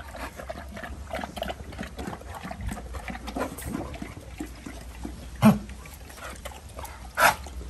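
American bully dogs lapping and snuffling with their heads in a water bucket. Two short, loud, sharp sounds stand out, about five and a half seconds in and again near the end.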